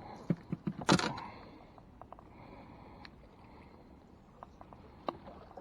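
Boat and tackle handling noise: a sharp knock-like sound about a second in, then a low steady hiss with a few faint clicks.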